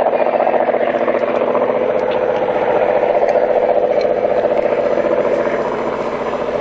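A train going by at close range: a loud, steady mechanical run with a scraping, grinding quality and a strong hum at one pitch, easing off slightly near the end.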